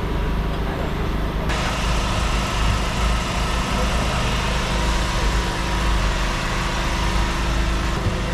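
Steady engine-like hum with street background noise; the background changes abruptly about a second and a half in.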